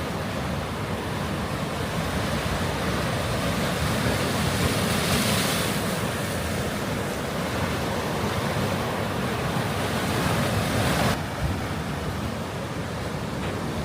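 Sea waves rushing on the shore with wind buffeting the microphone. The rush swells about four to six seconds in and drops away abruptly about eleven seconds in.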